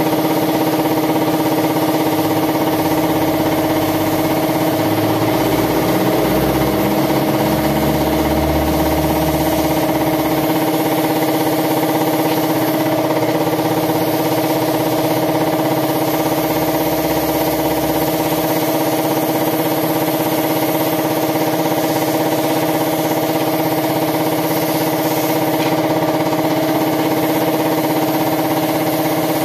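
Air compressor running steadily for paint spraying, a constant, unchanging hum.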